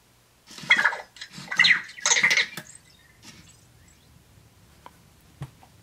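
Anki Vector robot answering a voice command in its small electronic voice: three short chirpy bursts in the first few seconds, which the owner takes for 'I can't do that right now', followed by a couple of faint clicks.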